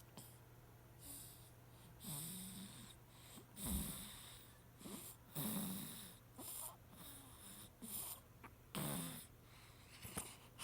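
A baby snoring in its sleep, quietly: a run of short snoring breaths roughly every second, each with a low buzzing note and an airy hiss. A faint steady hum lies beneath.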